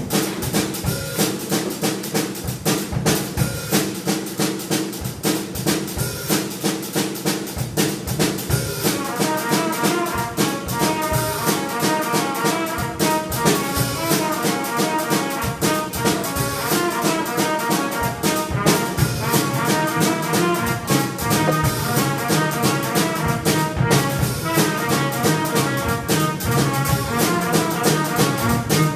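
Jazz band playing the opening of a tune: drums and low parts keep a steady beat from the start, and a higher horn melody joins about nine seconds in.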